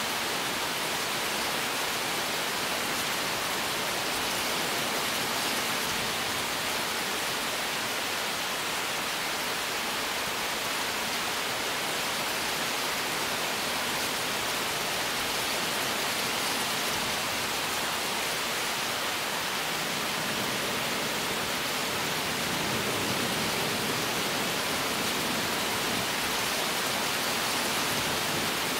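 Heavy rain falling steadily: an even, unbroken hiss.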